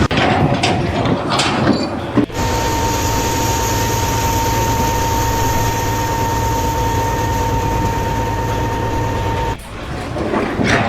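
A machine running steadily with a constant high whine, starting and stopping abruptly after about seven seconds, after a couple of seconds of irregular clattering noise.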